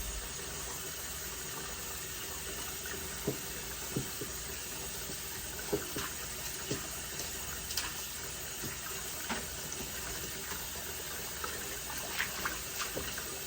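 Tap water running steadily into a sink as wigs are rinsed, with a few light knocks and splashes now and then.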